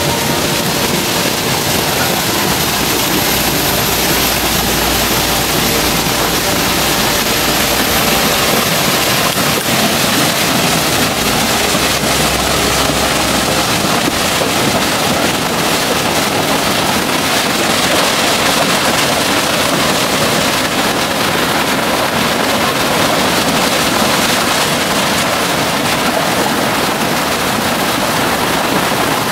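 Waterfall rushing steadily. Under it a low rumble stops about halfway through.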